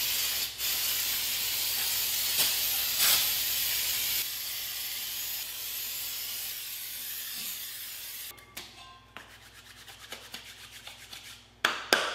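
Aerosol brake cleaner hissing in long sprays onto a drum brake assembly, stopping about eight seconds in. Light rapid ticking follows, then two sharp knocks near the end.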